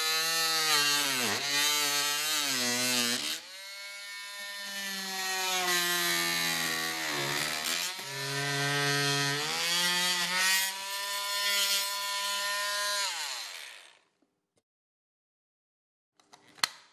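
Einhell 10.8-volt cordless Multimax oscillating multi-tool running with a plunge-cut blade through plasterboard, its pitch dipping again and again as the blade bites, then stopping about fourteen seconds in. A few light clicks near the end.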